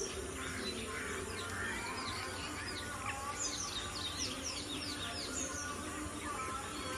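A crowd of birds calling at once: many short, high chirps sliding downward in pitch, thickest a few seconds in, over a steady background hiss.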